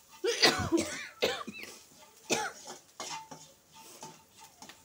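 A person coughing and clearing their throat, about four short coughs spread over a few seconds, the first the loudest.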